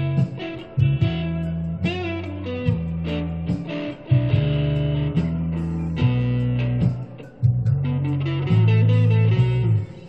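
Electric guitar improvising a blues in B, single-note lead lines with bent notes over low sustained notes. The low notes drop out just before the end.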